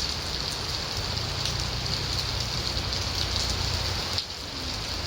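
Steady rain falling, a dense even hiss of drops with a low rumble underneath, dipping briefly a little past four seconds in.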